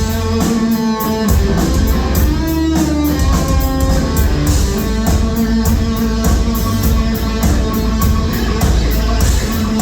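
Live rock band playing loud: an electric guitar riff over heavy drums with steady cymbal hits, as heard in the room at a club show.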